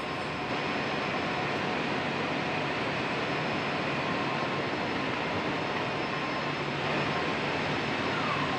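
Steady, dense drone of spinning-mill machinery: long rows of spinning frames running at full speed, with a few faint, steady high whines over the noise.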